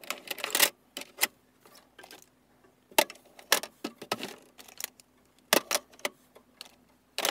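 Sunglasses being set into a clear plastic three-compartment serving tray, their frames clicking and clattering against the hard plastic. The clicks come in several quick clusters with short pauses between them.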